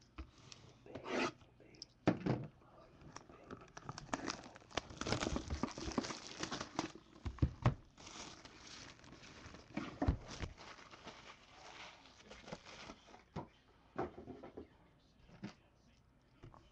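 A sealed trading-card box being unwrapped and opened by hand: plastic wrap tearing and crinkling, and cardboard scraping and rubbing, with a couple of dull knocks against the table midway.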